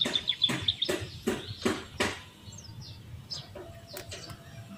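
A razor blade slicing through a green grape shoot to cut the scion into a wedge: a run of crisp cutting strokes, about two or three a second, that stop about two seconds in. Birds chirp in the background.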